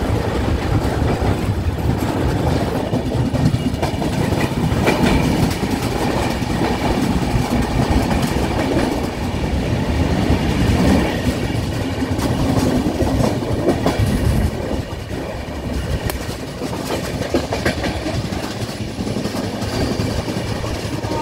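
Running noise of an Indian Railways express train heard from an open coach door: a steady rumble with the clickety-clack of the wheels over rail joints. It is louder while the train is in a tunnel and eases somewhat about two-thirds of the way through as it comes out into the open.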